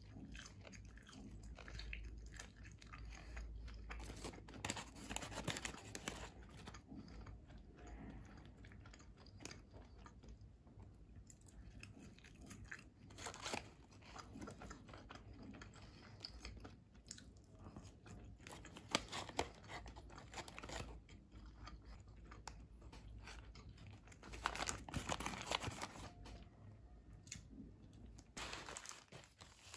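A person chewing crunchy curly fries close to the microphone, with irregular crunches. Louder bursts of crunching come every several seconds.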